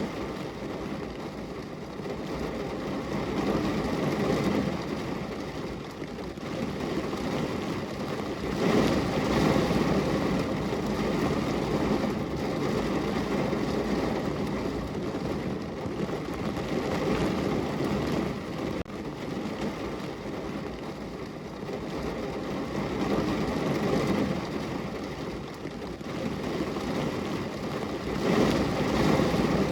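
Steady rain falling on a car's window and body, an even patter that swells louder now and then.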